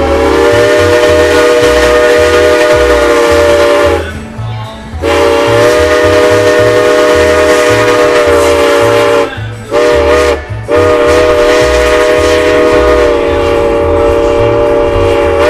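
Steam locomotive's chime whistle blowing a chord of several notes in the long, long, short, long pattern of a road-crossing signal.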